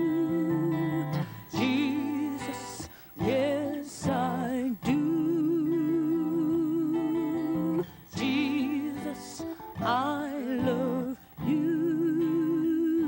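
Gospel music: a voice sings long held notes without words, wavering in pitch, over a steady accompaniment, with short breaks between phrases.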